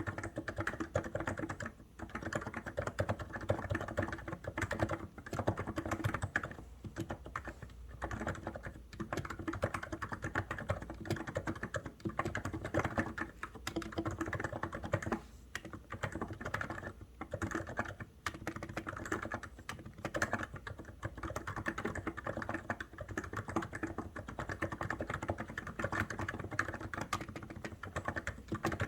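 COX Endeavour keyboard being typed on steadily: a fast, continuous run of keystroke clacks with a few brief pauses.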